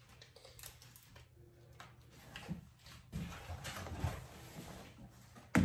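Faint rustling and handling of stickers and plastic packets in a wooden basket, louder for a moment about three seconds in, with one sharp click near the end.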